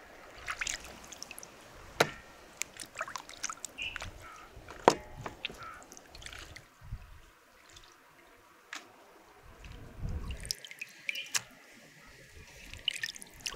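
Scattered sharp clicks and taps with dripping, trickling liquid between them, the loudest tap about five seconds in.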